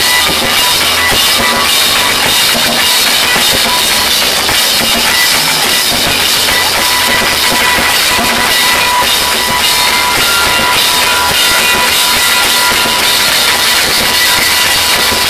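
Live rock band playing loudly: a drum kit driving the beat under electric guitar and bass guitar.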